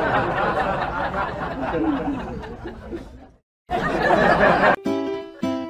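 Crowd laughter and chatter that fades out about three seconds in, then cuts back in briefly. Near the end, light plucked-string music starts.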